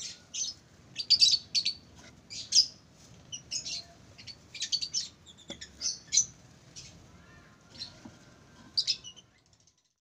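Lovebirds chirping: short, high chirps, some single and some in quick clusters, stopping a little before the end.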